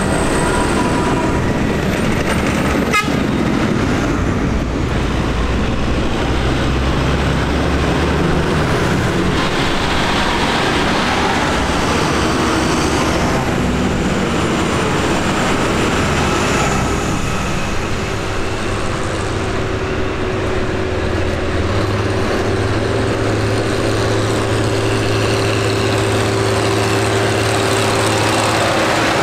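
Tractors driving past one after another, their diesel engines running steadily: a JCB Fastrac, then a New Holland, then a Ford 7910. A single sharp click about three seconds in.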